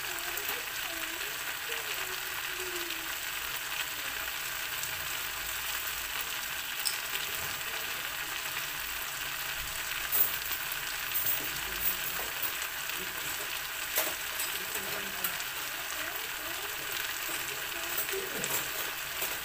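Vegetables sizzling steadily in a hot wok, a high frying hiss with a few sharp crackles and pops about halfway through and again near the end.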